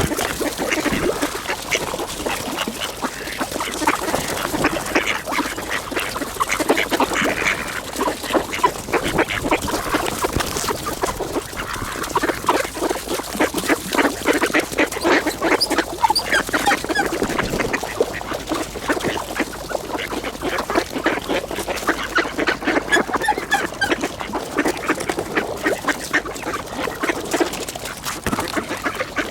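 A flock of mallard ducks quacking without pause, many calls overlapping, the busy chatter of ducks crowding in to feed.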